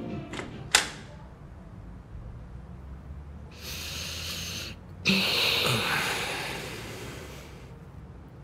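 A click, then a person breathing heavily: a short breath in, then a long sighing breath out that fades away.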